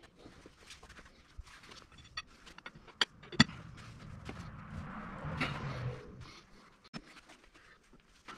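Hand work on a Ford 770B loader lift-cylinder rod as the seal assembly is forced down onto it against tight lip seals: scattered light clicks and knocks, with two sharp metallic clicks about three seconds in and a stretch of low rubbing noise around five to six seconds.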